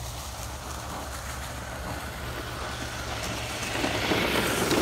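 Battery-powered Traxxas RC car driving up a slope over dry leaves and grass, its electric motor and tyres growing louder as it comes close near the end.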